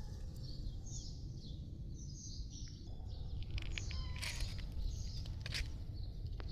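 Birds chirping in short, scattered calls over a steady low rumble of outdoor noise.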